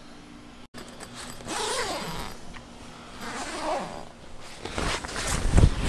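Zipper on a rooftop tent's fabric being pulled in two short strokes, then a heavy thump near the end.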